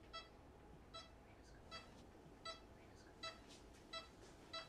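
Hospital patient monitor beeping in time with the heartbeat: a short, high electronic beep about every three quarters of a second, a steady pulse of roughly 80 a minute.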